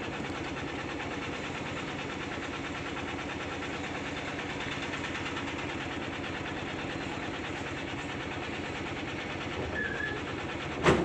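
Mahindra Jeeto mini truck's engine running steadily, heard from inside the cab. A single loud knock comes near the end.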